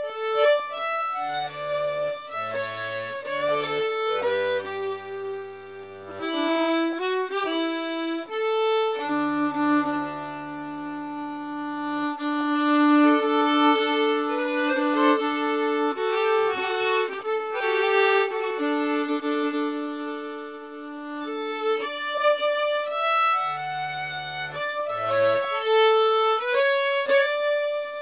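Button accordion and fiddle playing an Irish slow air together. Long held melody notes sit over the accordion's bass chords, which come in and drop out at intervals.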